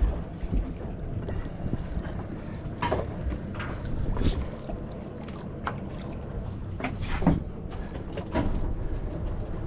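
Steady low rumble of a fishing boat at sea, with wind on the microphone and a few short knocks.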